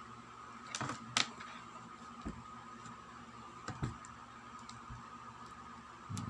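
A few sharp clicks and taps as multitester test probes are set against the parts on a circuit board, over a steady faint high-pitched tone.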